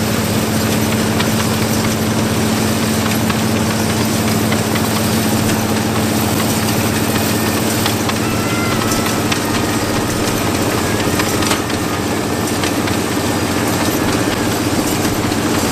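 Massey-Harris No. 21 self-propelled combine at work cutting and threshing a cereal crop: its engine and threshing machinery run steadily with a constant low hum.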